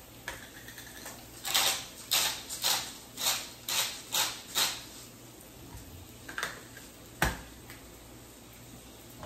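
Hand-twisted spice grinder of salt, garlic and chili grinding over raw ribeye, about eight quick rasping turns, each about half a second apart. A single knock follows, as of the grinder being set down on the table.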